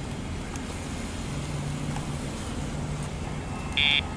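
A short electronic buzz near the end from an e-collar's sound box, marking a pager (vibration) page sent to the deaf dog's collar. A steady low background rumble runs underneath.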